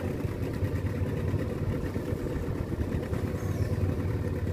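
Small wooden fishing boat's motor running steadily at low throttle as the boat comes in slowly.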